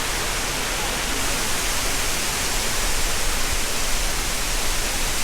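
Waterfall rushing steadily: a loud, even hiss of falling water with no breaks.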